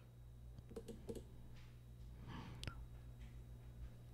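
A few faint, sharp clicks from computer input: a pair about a second in and another a little before three seconds. A steady low hum sits underneath.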